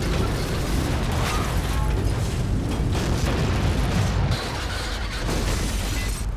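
Avalanche sound effect: a continuous heavy low rumble of rushing snow with scattered cracks and crashes, easing slightly a little past the middle.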